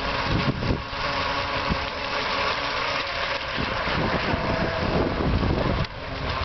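Small radio-controlled speed boat's electric motor running at speed across the water, a faint steady whine, under gusts of wind rumbling on the microphone.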